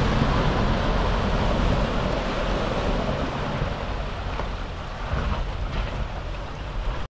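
Mitsubishi Triton ute driving through a creek crossing: rushing, splashing water with the engine running underneath. The sound fades as the ute moves away up the rocky creek bed.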